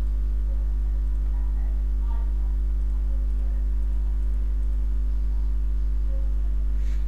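Steady electrical mains hum at about 50 Hz with a ladder of buzzy overtones above it: electrical interference on the recording, with no other clear sound.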